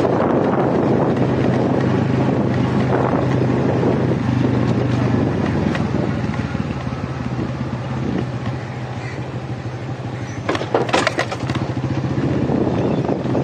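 Motorcycle engine running steadily as the bike rides along, with rushing air noise. A short cluster of sharp rattling knocks comes about ten and a half to eleven and a half seconds in.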